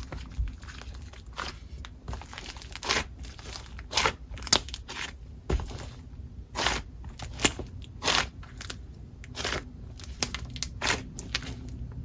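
Slime being squeezed and squished by hand, giving off irregular small crackling pops and squelches, the loudest about four and a half seconds in.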